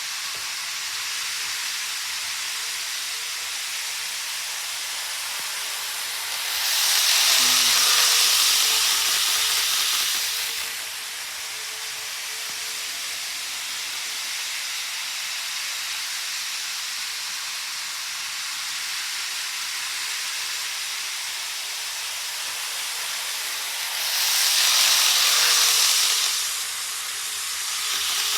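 Model trains running on a layout's track: a steady hissing, rolling noise of wheels and motors. It swells louder twice, at about a quarter of the way in and again near the end, as a train passes close.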